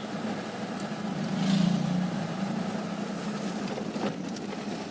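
Vehicle engine running steadily with a low, slightly wavering hum that swells briefly about a second and a half in.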